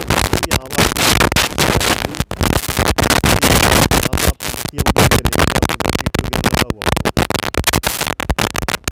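Loud, rough scratchy noise on the camera's microphone, with no clear tone, breaking up and cutting out briefly many times.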